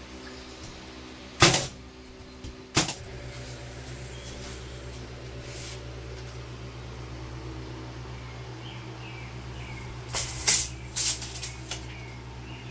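Two sharp shots about a second and a half apart from a nail gun driving nails into rough-sawn wall boards, over a steady low hum. Near the end come a few quick knocks and clicks as a board is handled.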